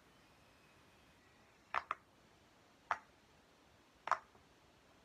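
Silicone pop-it fidget toy's bubbles being pressed by fingers, giving sharp little pops: a quick double pop a couple of seconds in, then single pops about a second apart.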